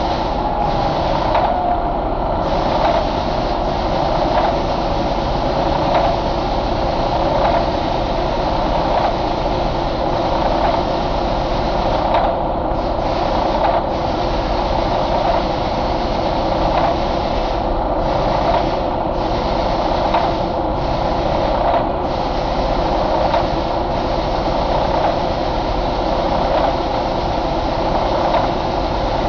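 2012 Detroit DD13 inline-six diesel engine idling steadily.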